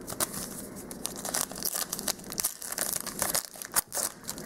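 Foil hockey-card pack wrapper being torn open and crinkled by hand: a dense run of irregular sharp crackles and rips, with the loudest snap a little before the end.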